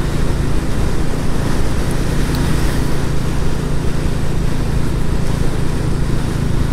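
Royal Enfield Classic 350's single-cylinder engine running at a steady speed on the road, heard under steady wind noise on the microphone.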